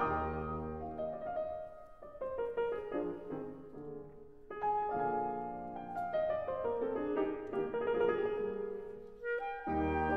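Instrumental classical-style background music with piano. One phrase fades out, new notes come in about halfway through, and low notes enter again near the end.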